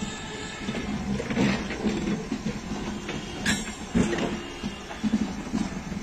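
Bangladesh Railway intercity passenger coaches rolling slowly along the track, wheels knocking and clunking irregularly over the rails, with a sharp click about three and a half seconds in.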